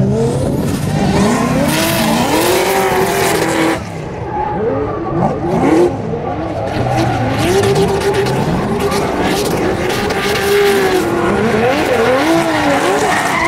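Two drift cars sliding in tandem, their engines revving up and down as the drivers work the throttle, with tire squeal and screech throughout.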